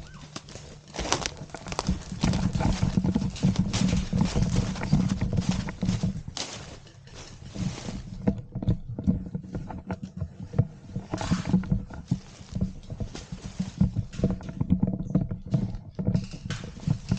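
Footsteps and crackling rustle in dry leaves and cut brush, with irregular knocks of gear against the body-worn camera and a low rumble of handling on the microphone.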